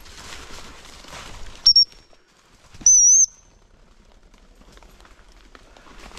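A gundog whistle blown twice: a short high pip about a second and a half in, then a longer, wavering blast about a second later. It is the signal for the English springer spaniel to turn. Before it, footsteps rustle through dry leaf litter.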